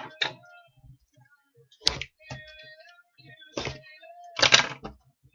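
A handful of sharp knocks and thuds with some rustling between them, from trading-card boxes, packs and slabs being handled and set down on a table.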